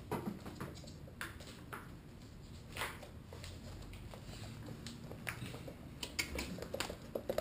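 Faint scattered clicks and taps of footsteps and an Italian greyhound's claws on a laminate floor, coming closer together in the last couple of seconds.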